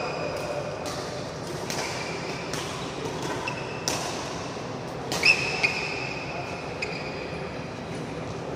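Sports shoes squeaking and stepping on a badminton court floor in an echoing hall, with several short sharp knocks. The loudest squeak, rising in pitch, comes about five seconds in.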